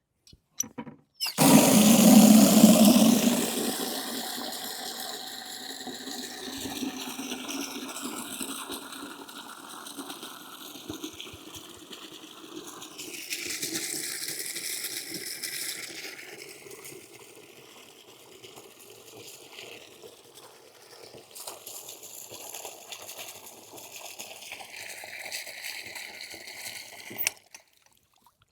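Water running hard into a bucket, starting with a loud gush about a second in and then filling steadily, with the tone of the bucket shifting as the water rises. It cuts off suddenly near the end.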